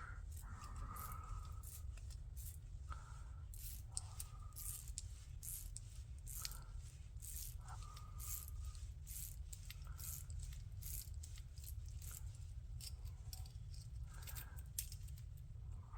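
Faint, irregular metallic clicks from a Leatherman Ratchet bit driver being fitted to and turned with a bit-adapter link of a metal Tread-style bracelet, with a low steady hum beneath.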